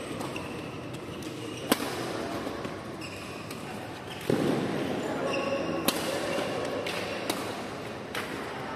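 Badminton racquets striking a shuttlecock in a rally: several sharp smacks, the loudest about two, six and seven seconds in, echoing in a large hall, with shoes squeaking briefly on the court mat and voices chattering.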